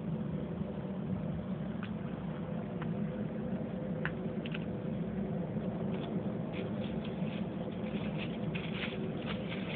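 Dogs stepping through dry fallen leaves, light crackles that come thicker in the second half, over a steady low mechanical hum.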